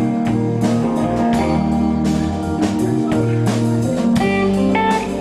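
Band music without vocals: guitar strumming steadily over a bass line.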